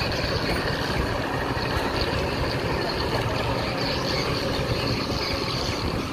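Outboard boat motors running steadily, with no change in pitch or level.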